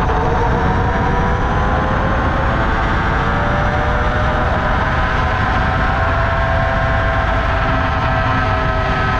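Dualtron Thunder electric scooter riding at speed. Its hub motors give a whine in several tones that rises slowly as it speeds up, over a heavy rumble of wind and road noise on the low-mounted camera's microphone.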